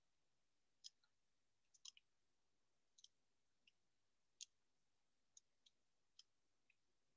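Near silence broken by about a dozen faint, irregularly spaced clicks of someone working a computer.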